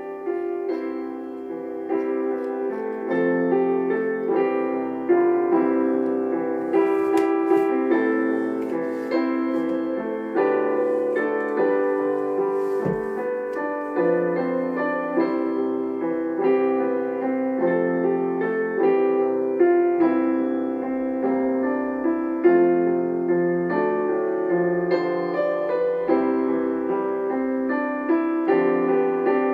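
Keyboard playing soft piano music: sustained chords with a slow melody on top, the notes changing about once a second.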